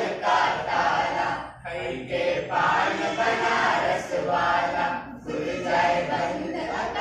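Several voices singing together in chorus, a song-like chant that goes on with only two brief pauses.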